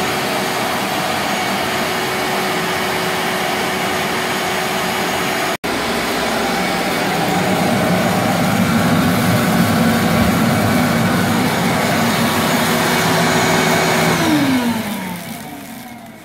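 Shop vacuum running steadily as the suction source of a homemade PVC-pipe cocoa bean winnower, with a brief gap about five and a half seconds in. Near the end it is switched off and its whine falls in pitch and fades as the motor spins down.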